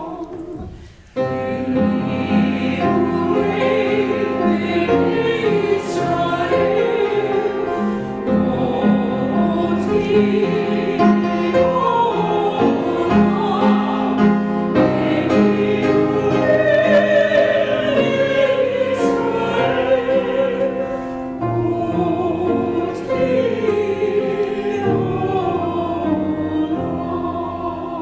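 Mixed choir of men and women singing a sacred choral piece with piano accompaniment. The singing breaks off briefly about a second in, then runs on and tapers off near the end.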